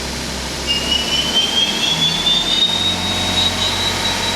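CNC lathe spindle on a DMG Mori EcoTurn 450 speeding up from 2,000 toward 2,800 RPM. It gives a high whine that rises in pitch from about a second in and holds steady for the last second or so, over a low machine hum.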